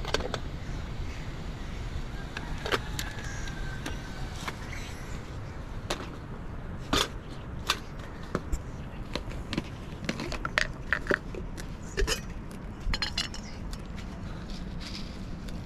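Light clicks, taps and rattles of a small metal teapot and a plastic jar of loose tea being handled and opened, many in quick succession after a few seconds, over a steady low background rumble.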